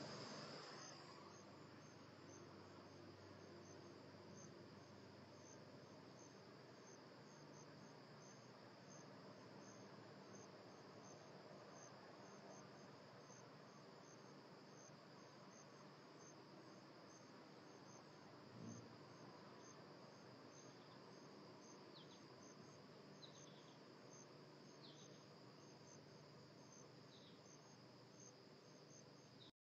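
Faint, steady chirping of crickets: a high, evenly spaced pulse over a constant high trill. A few short falling high notes come in the second half.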